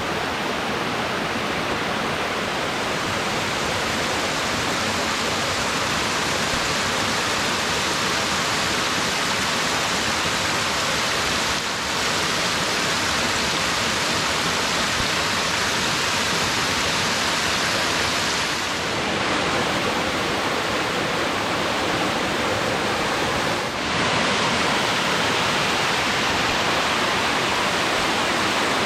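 Steady rushing water, such as a waterfall or fast stream, giving a loud, even hiss with no breaks.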